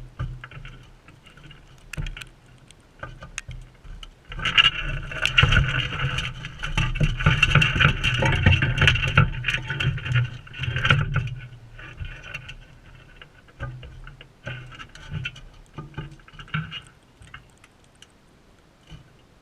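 Parrots feeding at a seed feeder close to the microphone: irregular clicks and taps of beaks and feet, thickening into a dense run of tapping and scraping from about four to eleven seconds in, then thinning to scattered clicks.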